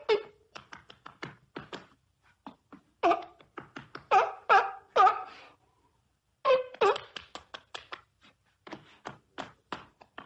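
A seal calling: runs of short, rapid, pitched calls, with a brief pause a little past the middle before another run.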